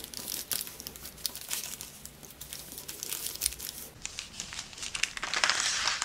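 Brown paper bag crinkling and rustling as it is folded and creased by hand, with crisp crackles throughout and a louder stretch near the end.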